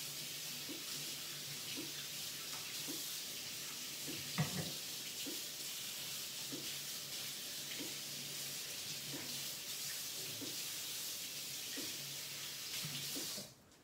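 Water tap running steadily while hands are rinsed under it, shut off shortly before the end. A single knock about four seconds in.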